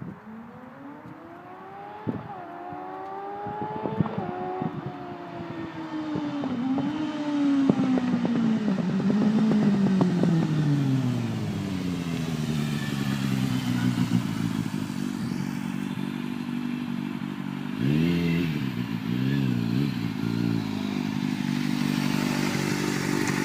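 2006 Kawasaki Z750S's 748 cc inline-four running through a Pipe Werx carbon round aftermarket exhaust with an open airbox. The engine climbs in pitch in steps over the first few seconds, typical of gear changes under acceleration, and grows louder. It then winds slowly down to a low idle, is blipped a few times about 18 seconds in, and settles back to idle.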